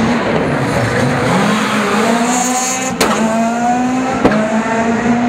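Škoda Fabia rally car engine accelerating hard. After a brief drop in pitch, the engine climbs through the gears, with two sharp cracks at the upshifts about three and four seconds in.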